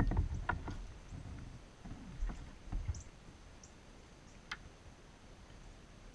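Handling noises in a kayak: a run of soft knocks and clicks over the first three seconds, then one sharp click about four and a half seconds in.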